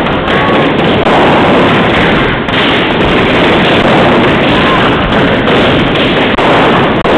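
Loud, rapid popping of many balloons being stomped on and crushed, so dense that the bangs run together into a continuous crackle.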